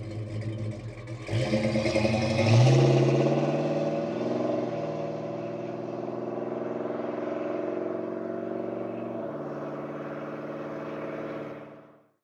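Mopar B-body V8 running through a Flowmaster American Thunder 2.5-inch stainless dual exhaust with Super 40 mufflers, pulling away hard from a stop. The exhaust note rises sharply about a second in, drops at gear shifts around four and a half and nine seconds, and grows fainter as the car drives off, then cuts off near the end.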